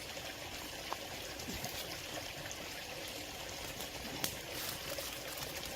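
Steady rushing of a flowing stream, with a couple of faint clicks.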